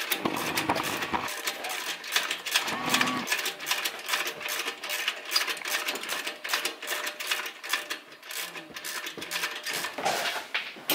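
Rapid metallic clicking and tapping of hand tools working the exhaust V-band clamp at the turbocharger, a clamp that is stuck and slow to come loose.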